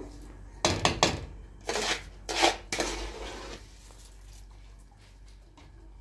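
Kitchenware clattering: a few sharp knocks of pots and utensils, then three longer noisy clatters over the next two seconds, quieter after.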